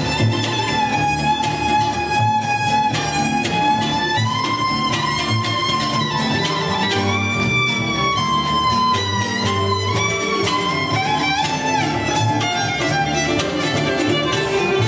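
Bluegrass string band playing live: the fiddle takes the lead with long bowed notes that slide between pitches, over mandolin, acoustic guitar and upright bass keeping a steady rhythm.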